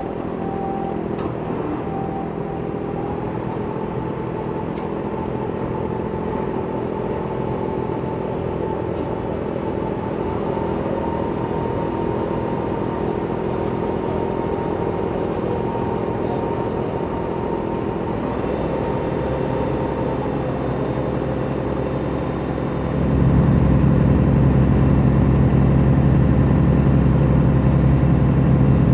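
Car ferry's engine running steadily as the ferry gets under way. About 23 seconds in it throttles up and grows louder, with a much stronger low drone.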